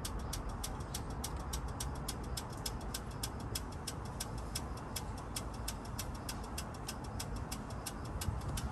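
Honda Rebel 1100's parallel-twin engine idling steadily through a cheap aftermarket slip-on muffler fitted with an inner silencer baffle, a deep exhaust note with a fast, regular ticking over it.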